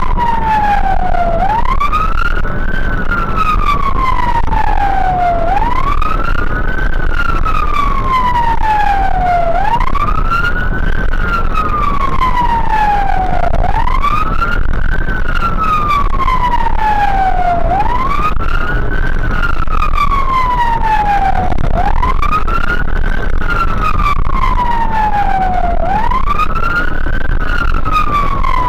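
Fire engine siren wailing, its pitch rising quickly and then falling slowly, over and over about once every four seconds. Steady engine and road rumble runs underneath.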